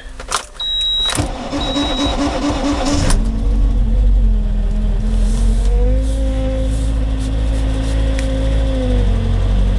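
UAZ Patriot engine cranking in deep frost with two short high beeps, catching about three seconds in and settling into a steady cold idle. The idle rises slightly about halfway through and drops back near the end.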